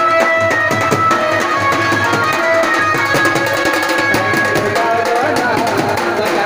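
Procession music: drums beaten in a fast, steady rhythm, with a melody of long held notes over them.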